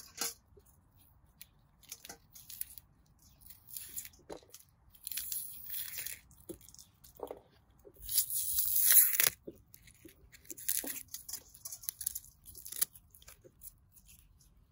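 Irregular rustling, tearing and crunching handling noises in short bursts, the loudest a longer tearing rustle about eight to nine seconds in.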